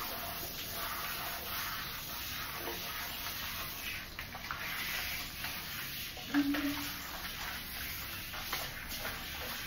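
Handheld shower head spraying water onto a soapy dog's coat: a steady hiss of running water, with hands rubbing through the wet fur. A short pitched note sounds once about two-thirds of the way through.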